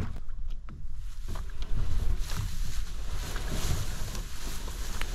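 Wind buffeting the microphone in a low rumble, with scattered knocks and rustling as a plastic kayak is dragged out of the water onto a grassy bank.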